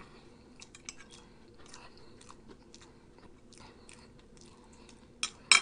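Close-miked chewing of T-bone steak: soft, irregular wet mouth clicks and smacks, with two sharper, louder clicks near the end.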